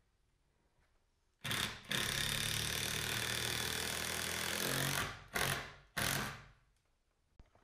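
Cordless impact driver driving a long lag bolt: a loud hammering rattle lasting about three and a half seconds, then two short bursts.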